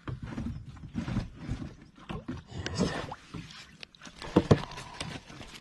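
Irregular water splashing and knocking as a hooked fish is played at the surface, with two sharper knocks about four and a half seconds in.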